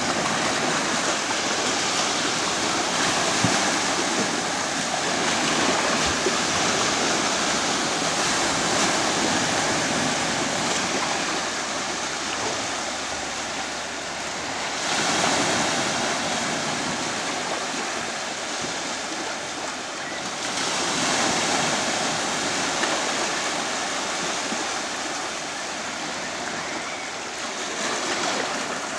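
Small Black Sea surf breaking and washing up a sandy beach in a steady wash, swelling louder as waves break about halfway through, again a few seconds later, and near the end.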